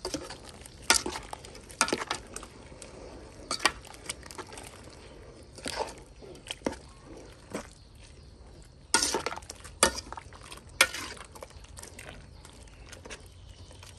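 A ladle stirring a soupy curry in a large aluminium pot, knocking and clinking against the metal sides about a dozen times at irregular intervals.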